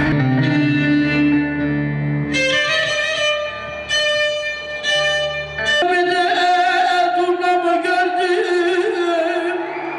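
Violin playing a slow Turkish folk melody with bağlama accompaniment. The violin's bright line comes in about two seconds in, and from about halfway through it holds long, wavering notes with vibrato.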